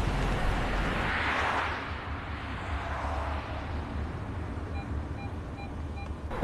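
Volkswagen sedan reversing slowly, its engine and tyres giving a low rumble. Near the end the rear parking sensor beeps four times in quick, even succession, warning of an obstacle close behind.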